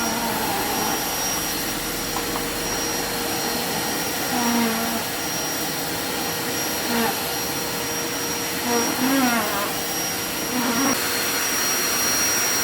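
Wet and dry vacuum cleaner running steadily: a rushing hiss with a steady whine.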